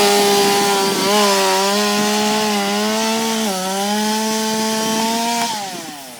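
Chainsaw running at high revs while cutting into a tree trunk, its pitch sagging briefly twice under load. About five and a half seconds in the throttle is released and the engine winds down.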